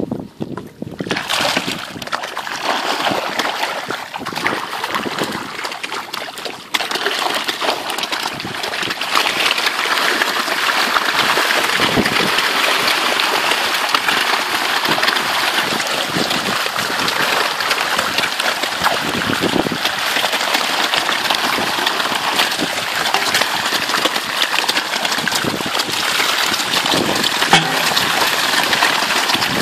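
A crowd of snakehead fish splashing and thrashing at the water surface in a feeding frenzy, a dense continuous churning of splashes that gets louder about seven seconds in.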